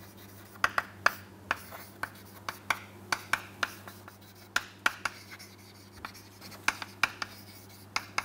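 Chalk tapping and scratching on a chalkboard as words are written: a quick, irregular run of sharp taps, several a second.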